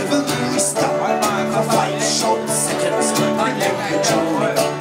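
Irish folk tune played live on banjo and strummed acoustic guitars, with a steady beat.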